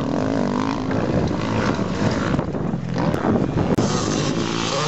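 Motocross dirt bike engines revving, their pitch rising and falling as the riders work the throttle up the track. A sudden break a little before the end, where a different bike's engine takes over.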